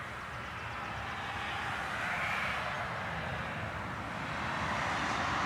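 Steady rushing background noise that swells a little about two seconds in and rises again near the end.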